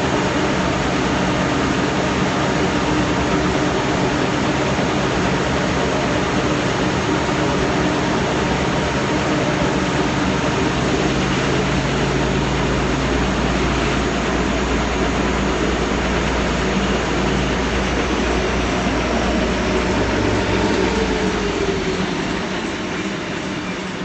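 Large industrial workshop sander running on a wooden skateboard blank, a loud steady drone with a low hum. Near the end the hum shifts and the sound starts to fall away.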